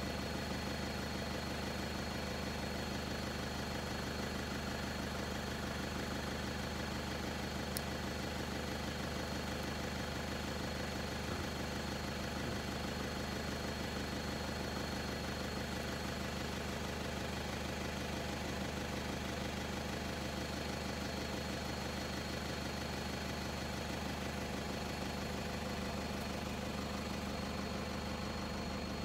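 Engine of a stopped game-viewing vehicle idling with a steady low hum, a thin steady high tone running above it.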